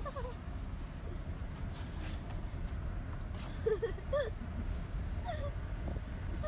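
A dog whining and yipping in a handful of short, high cries that bend up and down, the loudest about four seconds in, over the steady low rumble of a moving car.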